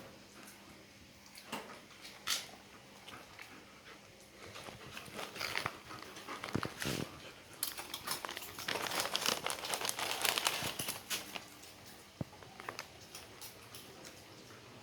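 Dogs crunching snack crackers: scattered crackly clicks and crunches, thickest for a few seconds in the middle.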